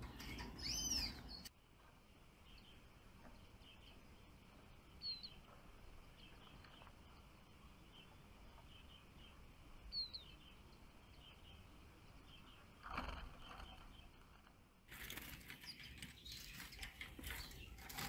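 Small songbirds chirping in short gliding calls, loudest in the first second and a half. After that only faint scattered chirps are heard, with a rustle of wings near the end.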